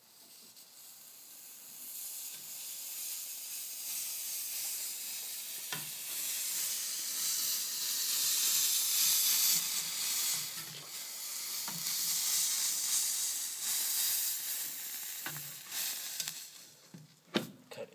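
Flux sizzling on a copper flat lock seam as a 600-watt electric soldering iron heats it and solder flows in. The sizzle builds over the first couple of seconds, holds through the middle and dies away near the end, with a few short clicks along the way.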